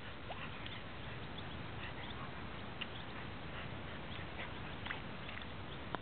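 A dog moving about in shallow muddy water, with scattered small splashes and snuffles over a steady hiss.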